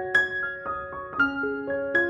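Background piano music: a melody of single struck notes, about three or four a second.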